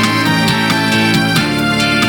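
Samsung SGH-D480 polyphonic ringtone playing as synthesized music: a bass line and melody over a steady beat.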